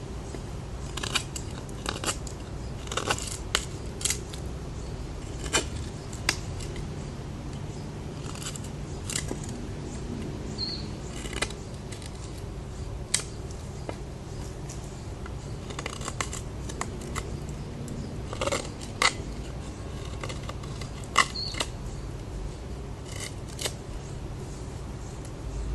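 Spyderco Paramilitary 2 folding knife cutting: irregular sharp snips and clicks as the blade bites through material, roughly one every second or two, some coming in quick pairs.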